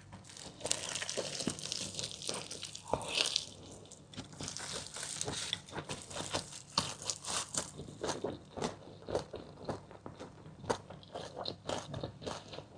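Crispy fried chicken drumsticks being bitten and chewed: dense crunching of the fried coating for the first few seconds, then a steady run of separate crunches as it is chewed.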